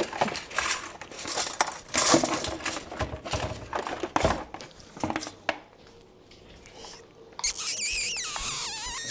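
Crinkling and rustling handling noises for the first five seconds or so. Then, near the end, a dachshund puppy gives a high, wavering whine that lasts over a second and drops in pitch as it ends.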